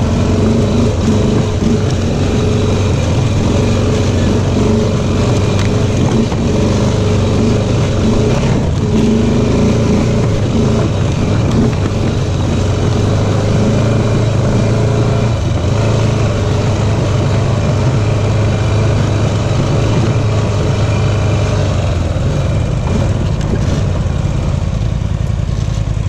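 Off-road vehicle engine running steadily at an even, unchanging pitch.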